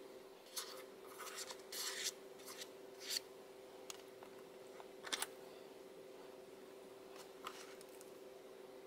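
Small plastic spoons scraping and tapping in a plastic candy-kit tray as wet, grainy candy is scooped: a run of short scrapes in the first three seconds, then single ones about five and seven and a half seconds in, over a faint steady hum.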